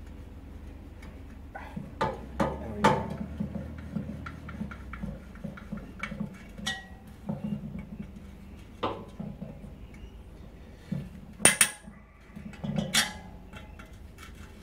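A spoke spanner clicking and clinking on the old spoke nipples of a Yamaha TDR250's front wheel as they are cracked loose one after another, with two sharper metal knocks near the end.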